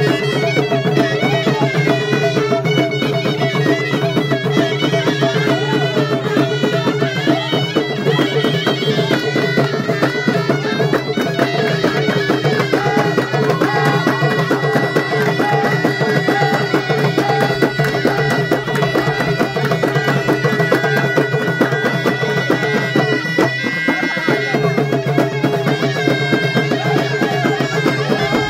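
Live Moroccan hit folk music: a reedy ghaita shawm plays a sustained melody over a steady, driving beat of frame drums. About midway the shawm holds one long high note for roughly ten seconds.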